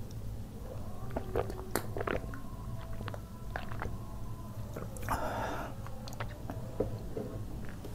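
A person drinking close to the microphone: wet gulping and swallowing with small mouth clicks, and a short breathy burst about five seconds in.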